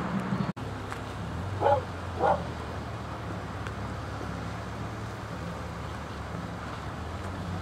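A dog shut inside a parked car giving two short barks about two seconds in, over a steady low hum.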